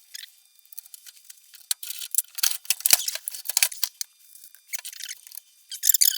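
Rusty, stiff metal parts of an old reel mower being worked by hand, giving irregular metallic clicks and rattles, with high squeaks near the end.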